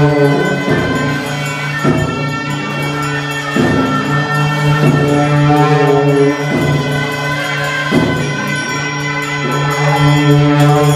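Tibetan Buddhist monastic ritual music: horns hold a steady drone while a drum and cymbals strike together about every second and a half.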